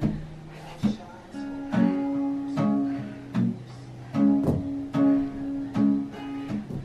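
Acoustic guitar played by strumming chords: a sharp strum every second or so, with each chord left ringing between strokes.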